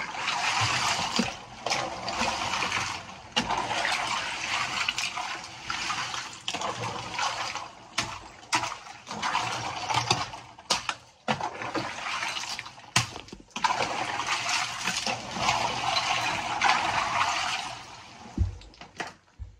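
Ice water sloshing and splashing in a chest freezer as loose ice chunks are stirred and lifted with a wooden spatula, with several sharp knocks of ice and tools among the splashing. The sloshing dies down near the end.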